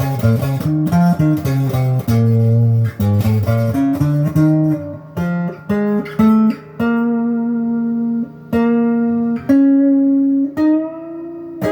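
Electric guitar, a Les Paul-style clone on its stock neck pickup, played clean through an amp with a lot of reverb: a quick low riff of picked notes, then several longer held notes, with one note bent upward near the end.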